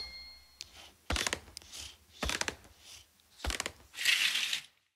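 Cartoon sound effects: a series of short, separate crunching and clattering hits, then a brief hissing crumble about four seconds in that cuts off.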